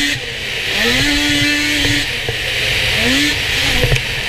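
Open-mod snocross snowmobile's two-stroke engine revving under throttle, its pitch dropping as the throttle is let off and climbing again several times, over a steady high hiss. A couple of sharp knocks a little before the end.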